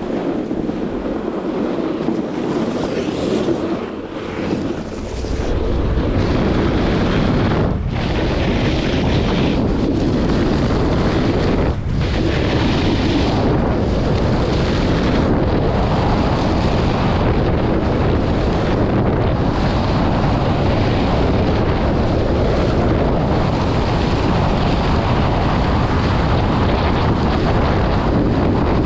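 Steady rush of wind buffeting the microphone, building up about five seconds in and then holding loud and even, as on a fast run down a ski slope.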